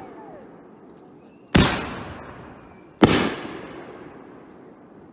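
Two loud aerial firework shell bangs about a second and a half apart, each trailing off in a long echo.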